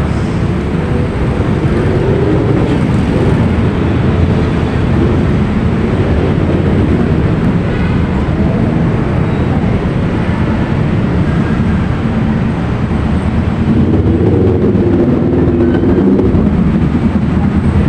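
Loud, steady low rumble of city street traffic, with faint voices of passersby.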